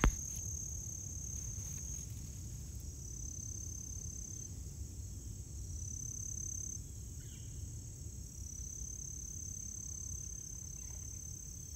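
Insects trilling in a weedy autumn field: a thin, high, continuous trill that breaks off briefly every second or two, with a fainter, higher steady buzz above it. A low rumble sits underneath.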